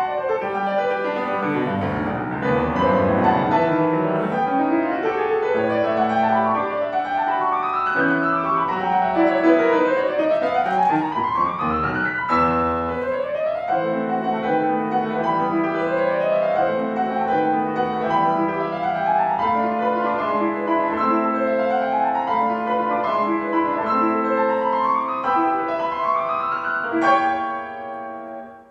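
Solo piano playing a classical piece full of fast runs and arpeggios sweeping up and down the keyboard. It ends near the close with a loud final chord that rings and dies away.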